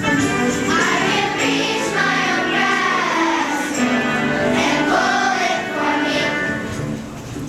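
A choir singing, with several voices moving together over sustained accompanying tones; the sound grows quieter near the end.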